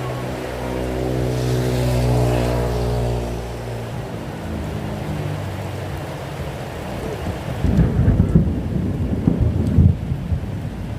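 Steady rain, with a vehicle passing on the wet road in the first few seconds: its engine hum and tyre hiss swell and then fade away. About two-thirds of the way in, a low, uneven rumble of thunder sets in and rolls on.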